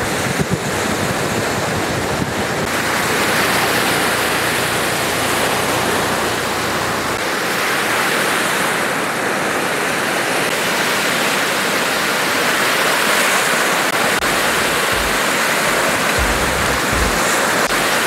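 Surf breaking on a sandy beach: a steady rush of waves. A few low thumps come in near the end.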